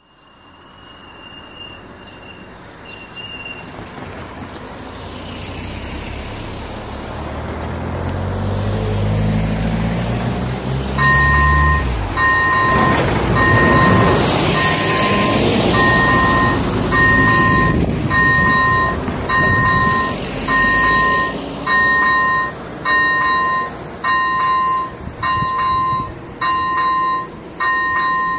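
A heavy dump truck's diesel engine builds up and the truck passes close by. From about a third of the way in, the level crossing's electronic warning bell starts up, a two-tone ding repeating about once a second, which signals that a train is approaching.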